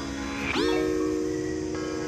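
Background music: a chord of held notes that slides up into pitch about half a second in, then sustains.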